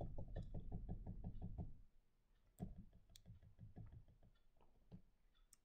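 Faint, dull clicks in quick succession, about eight a second for the first two seconds, then a few scattered clicks: rapid clicking to skip back through presentation slides.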